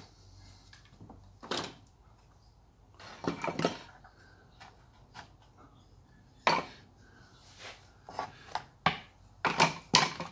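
Wooden clamps and wooden parts being lifted off a plywood board and set down: scattered knocks and clatters of wood on wood. The knocks come more often near the end.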